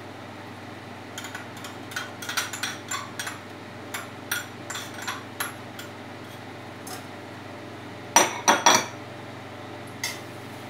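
A spoon clicking and scraping against a glass bowl and a stainless steel pan as ketchup is scraped into a tomato sauce and stirred in, with three sharp knocks of the spoon about eight seconds in and one more near the end.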